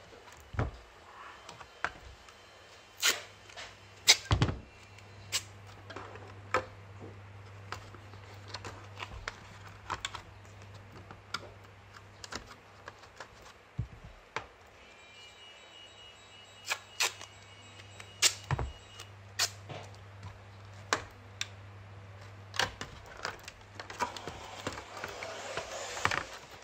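Thin clear plastic body shell being handled: scattered sharp clicks and knocks as it is lifted, flexed and set down, with a longer crinkling rustle near the end, over a steady low hum.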